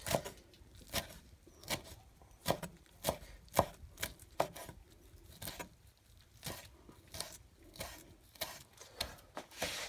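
Large kitchen knife chopping fresh coriander leaves on a wooden cutting board: separate knocks of the blade on the board, one or two a second, at a slightly uneven pace.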